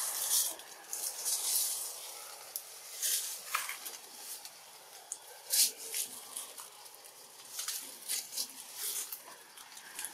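Scattered short rustling and crackling noises at irregular intervals, a dozen or so over the stretch, with a faint hiss between them.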